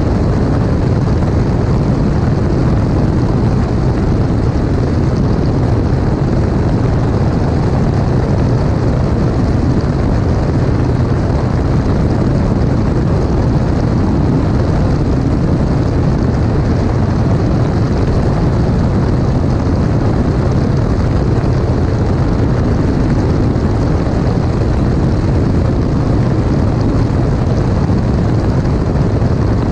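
Light aircraft's piston engine and propeller in steady cruise, a constant low drone mixed with the rush of airflow past a camera mounted outside under the wing.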